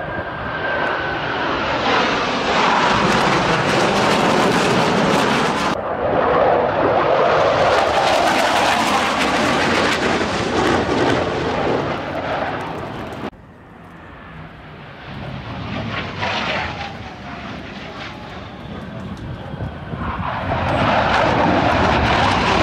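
Blue Angels F/A-18 Hornet jets making low passes overhead: loud jet engine noise swelling and fading, with a falling whine as each jet goes by. The sound cuts off abruptly twice, about six and thirteen seconds in, where the footage changes to another pass.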